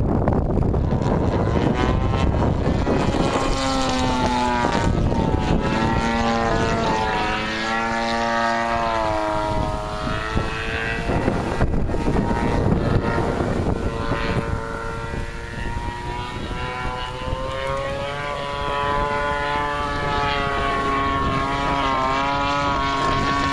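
Gas-powered radio-controlled model float plane flying, its propeller engine running steadily with the pitch rising and falling several times.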